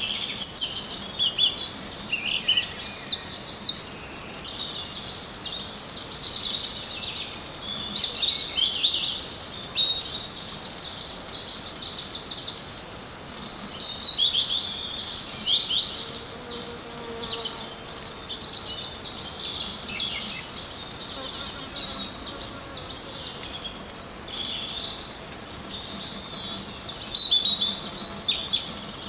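A songbird singing long, rapid, jumbled phrases of high notes, with short pauses between phrases.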